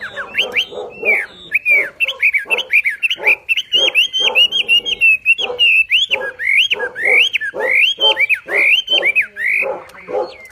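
Wambi songbird singing a loud, fast unbroken run of hooked, falling whistles over a harsher lower chatter, several notes a second: its full, hard-driving 'tembakan' song.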